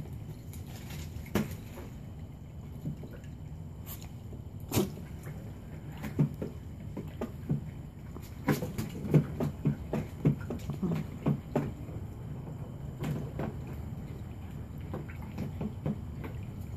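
Irregular knocks, taps and scrapes as a Chihuahua paws at a wicker chair and the plastic Frisbee lodged in it. The taps come thickest in the middle, over a steady low hum.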